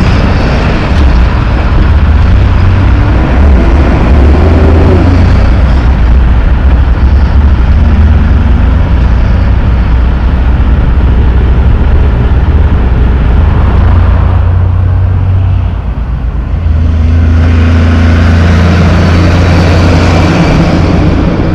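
Diesel engines of loaded logging trucks pulling through an intersection, with traffic around them: a loud, steady low engine sound that dips briefly about sixteen seconds in, then comes back loud and close as another truck passes.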